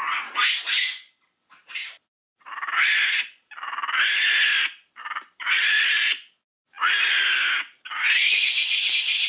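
Cartoon dinosaur vocal sound effects: a string of about ten short, mid-to-high-pitched creature calls, each under a second and a half, with brief silences between. Several slide upward in pitch as they begin.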